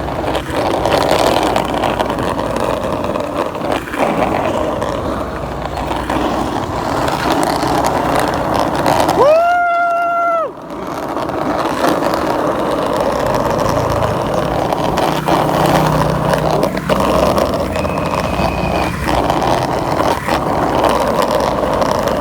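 Steady street noise of skateboard wheels rolling on pavement and traffic, with a few sharp knocks of boards. About ten seconds in, a horn sounds once, one steady note lasting about a second.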